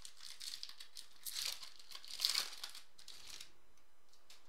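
A 2015 Topps Chrome football card pack's wrapper crinkling in bursts as it is opened, loudest a little over two seconds in.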